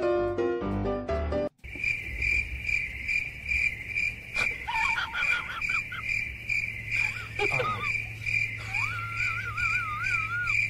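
Cricket chirping steadily, about two high chirps a second, over a low hum, after a second and a half of light piano music that cuts off abruptly. A few short high wavering whines sound over it, with a longer warbling one near the end.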